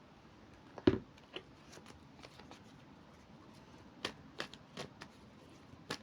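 Tarot or oracle cards being handled and shuffled: a scatter of short, soft snaps and taps, the loudest about a second in.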